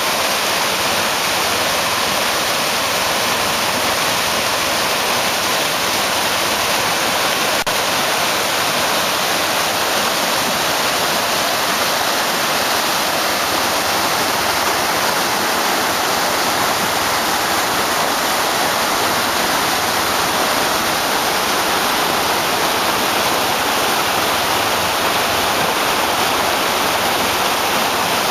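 Floodwater rushing and churning in a fast current: a steady, loud rush of water.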